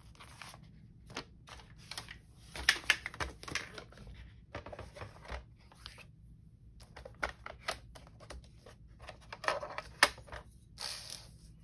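Paper sheets and small crafting tools handled on a desk and scoring board: rustling and light taps, in short clusters, with sharp clicks about three seconds in and again about ten seconds in.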